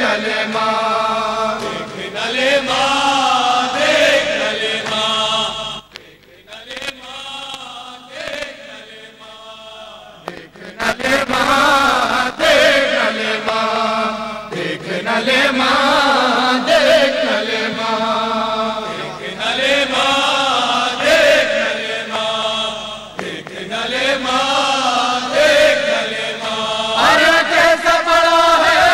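Voices chanting a Shia mourning lament (noha) in a drawn-out, rising and falling melody. It drops quieter for a few seconds about six seconds in, then swells back.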